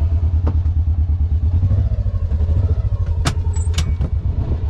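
Motor vehicle engine running at a steady low speed, a deep rapid pulse. There is a light click about half a second in and two loud sharp clacks about half a second apart past the three-second mark.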